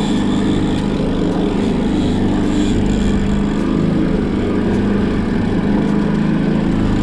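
Boat's outboard motor running steadily at an even speed, a low engine drone with a steady hiss above it.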